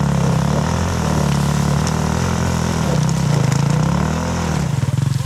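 Enduro dirt bike engine revving, its pitch rising and falling under the throttle, then settling to an even, pulsing idle near the end.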